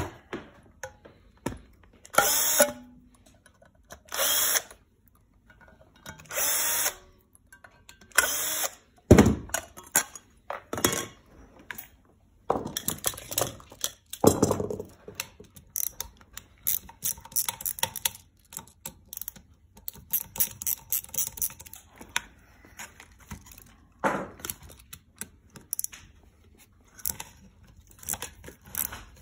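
Cordless drill-driver run in four short bursts about two seconds apart, driving screws at the base of a magnetic drill where the magnet is being changed. Then a loud clunk, followed by irregular clicks and clatter of tools and metal parts being handled.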